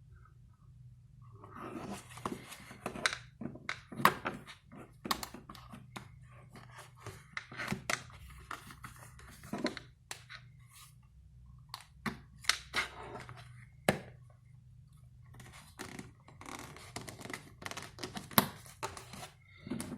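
Leather and tools being handled on a work surface: irregular knocks and thunks, a few of them sharper, with rustling and scraping between them, over a steady low hum.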